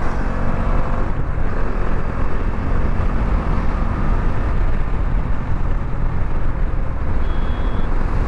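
Bajaj Dominar 400's single-cylinder engine running steadily at highway cruising speed, mixed with heavy wind and road noise on the microphone.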